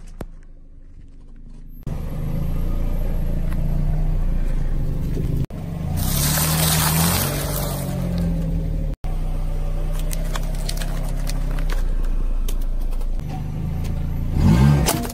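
Car engine running at low revs close to the front tyre as the wheel rolls slowly over and crushes small objects, breaking off abruptly a few times where clips are cut together. A loud stretch of crunching comes about six seconds in, and the engine revs up briefly near the end.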